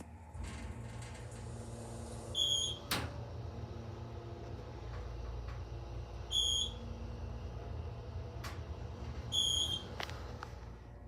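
KONE hydraulic elevator in travel: a steady low hum from the car, with three short, high electronic beeps about three and a half seconds apart and a few sharp clicks.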